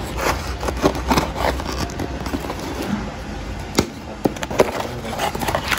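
Scissors cutting and slitting packing tape on a cardboard shipping box: irregular scraping and crackling, with a couple of sharp knocks about four seconds in.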